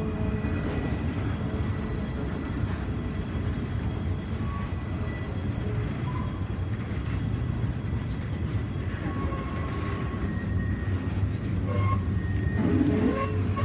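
A train running with a steady low rumble, growing a little louder near the end.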